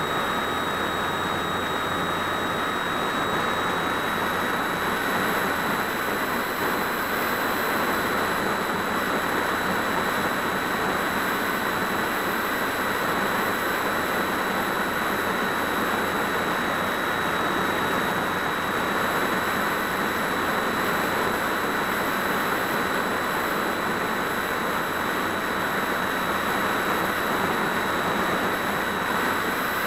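Steady rush of air over a wing-mounted onboard camera on an RC glider in flight, with a thin high whine held at one pitch.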